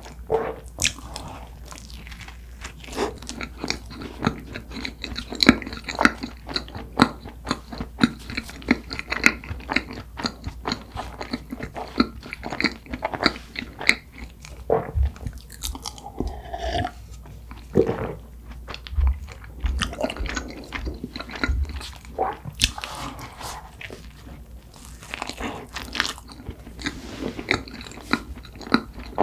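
Close-miked eating sounds: soft cream-filled red bean buns being bitten and chewed, with many wet mouth clicks and smacks.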